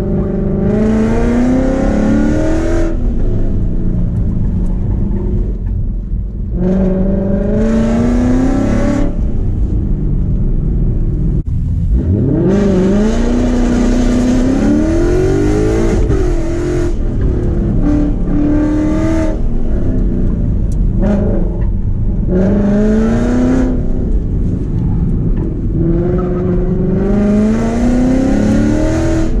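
2015 Mustang GT's 5.0 V8, fitted with long-tube headers and Borla ATAK mufflers, heard from inside the cabin on an autocross run. The engine note rises in about six full-throttle pulls, each dropping away as the driver lifts for braking and turns.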